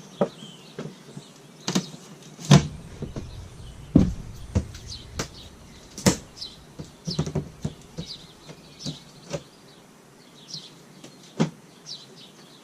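Stapled cardboard shipping box being worked open: irregular clicks, knocks and scrapes as the staples are pulled out, with a heavy thump about two and a half seconds in. Birds chirp faintly in the background.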